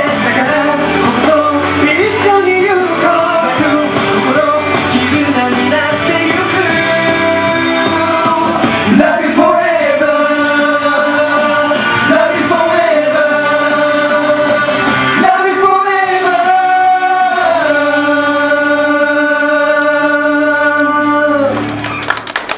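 Male pop group singing live into handheld microphones over a loud amplified pop track, ending on long held notes; the music cuts off just before the end.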